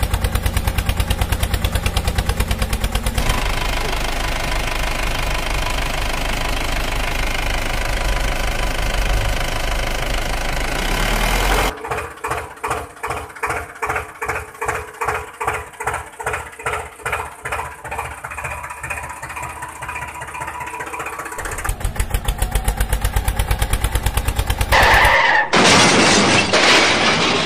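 Tractor engine running, first steady, then chugging in slow, even beats about two a second for some ten seconds, then steady again. Near the end a loud rushing hiss comes in.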